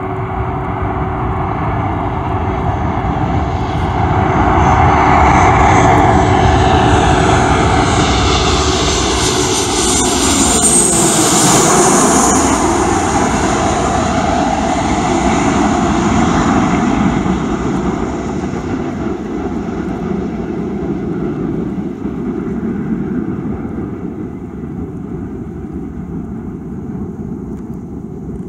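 Ryanair Boeing 737-800's jet engines passing close on landing: the engine whine rises in pitch, then drops as the plane goes by about eleven seconds in, and the noise then fades to a lower rumble.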